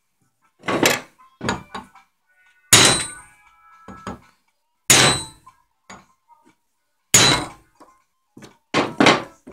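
Hammer blows driving a bearing on a milling machine, about seven irregular strikes, the three heaviest followed by a short metallic ring.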